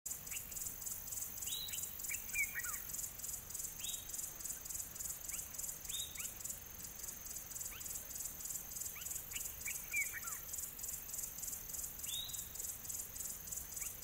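A chorus of insects pulsing evenly, about four pulses a second, with a bird giving high clear notes that slide downward every few seconds and a couple of short runs of chirps.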